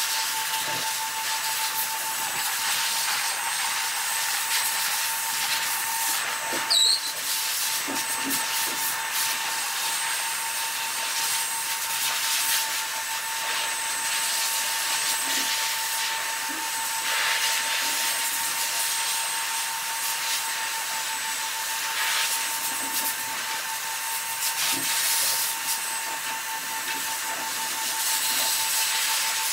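A motor running steadily, giving an even hiss with a constant mid-pitched whine, under faint rubbing and snipping as a dog's coat is combed and trimmed with scissors. A brief high squeak about seven seconds in.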